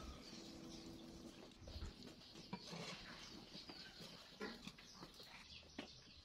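Very faint sounds: a few light clicks and knocks from cookware being handled, over faint, repeated high chirping of birds in the background.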